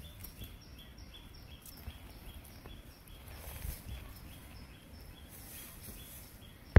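Outdoor ambience: a high, short chirp repeating evenly about three times a second, over a low rumble, with a sharp click at the very end.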